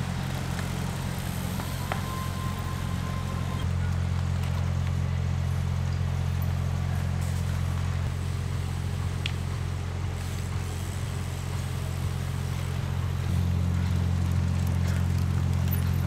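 Steady low engine hum that steps up in level about four seconds in and again near the end.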